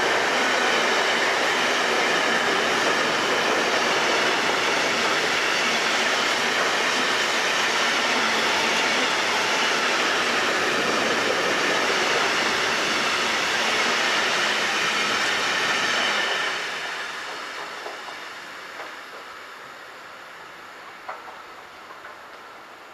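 Container freight train of flat wagons rolling past close by, a loud steady noise of wheels running on the rails. About two-thirds of the way in the last wagon passes and the sound falls away and fades down the line.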